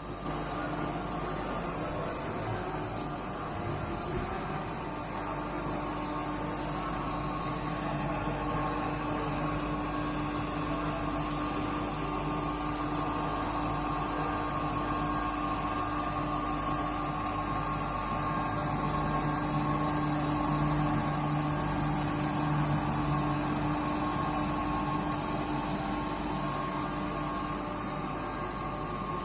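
Spindle of a homemade CNC router running steadily while it mills, a constant whine over a high hiss.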